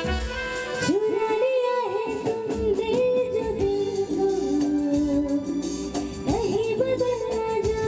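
Live band playing a Bollywood film song, a gliding melody line carried over keyboard and percussion accompaniment.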